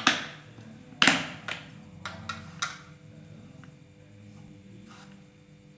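Glassware and kitchen utensils clinking and knocking as they are set down and handled: two loud clinks about a second apart, then several lighter taps, over faint background music.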